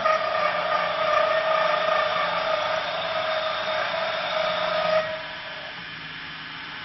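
Mini CNC wood lathe cutting a spinning wooden blank: a steady cutting noise with a whine in it for about five seconds, then dropping to the quieter sound of the lathe running without cutting.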